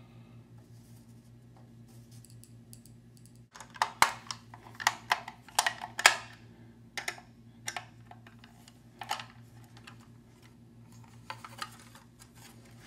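Quiet for the first few seconds, then from about three and a half seconds in a run of irregular sharp clicks and light knocks, a replacement hard drive being handled and screwed onto a DVR lid.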